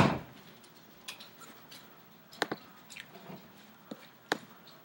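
Computer mouse clicking a few times: a quick double click about two and a half seconds in, then two single clicks near the end.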